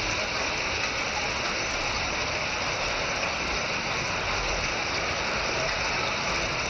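Hail falling: a dense, steady clatter of countless hailstones striking.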